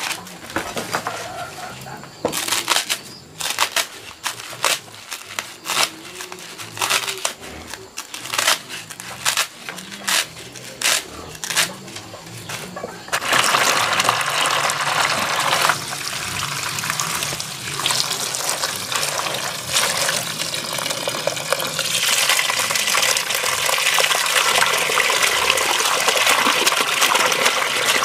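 Papaya leaves and stems being torn and snapped by hand, a run of sharp irregular snaps. About thirteen seconds in, water starts pouring steadily into a plastic basin, and near the end the greens are swished about in it by hand.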